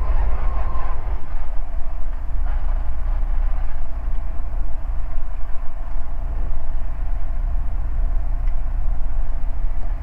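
Ikarus C42B microlight's engine running, heard as a steady low rumble close to the aircraft.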